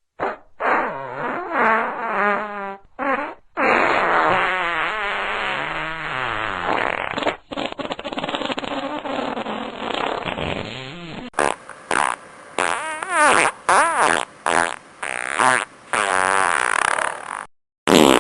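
A string of fart sounds, one after another. First come several long, wavering, pitched farts lasting two to four seconds each. About two-thirds of the way through, a quick run of short, brighter ones follows, ending with another long one.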